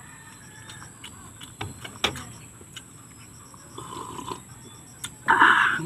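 Close-miked eating and drinking: a few short crisp clicks of chewing, then slurping sips of coffee from a mug, the loudest a half-second slurp near the end.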